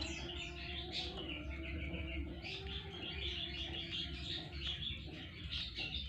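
Javan munia × society finch hybrid nestlings chirping in quick runs of short, high notes while a hand takes them from the nest, over a steady low hum.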